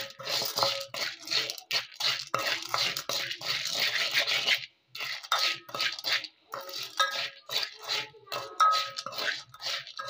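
A spoon stirring dry popcorn kernels in oil in a metal pressure cooker pot: quick, irregular scraping strokes against the pot bottom, with the kernels rattling and the pot giving brief metallic rings. There is a short pause about five seconds in.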